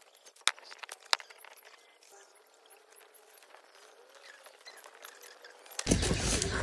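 A small fire being lit from dry leaves and bamboo kindling: two sharp clicks early on, then faint scattered crackling as the tinder catches. A loud rushing noise sets in near the end.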